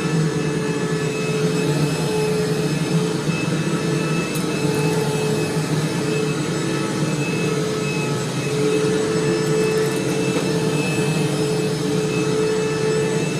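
A 2005 Hoover Preferred upright vacuum cleaner running steadily: a motor hum with a thin high whine on top.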